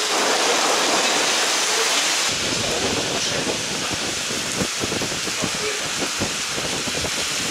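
Heavy thunderstorm rain pouring onto pavement in a dense, steady hiss. About two seconds in, irregular low thuds join in.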